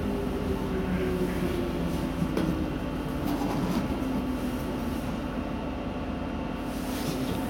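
Inside a DB Class 420 S-Bahn electric train slowing at a platform: a whine falls in pitch during the first second or so over a steady low rumble and hum, with a few light knocks.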